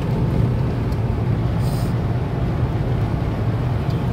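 Steady low road and engine noise inside a car's cabin at highway speed, with a brief high hiss about one and a half seconds in.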